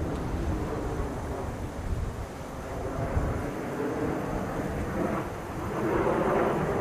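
Jet noise from a formation of Kawasaki T-4 trainers flying overhead at a distance, their twin turbofans heard as a broad rumble that grows louder about five seconds in.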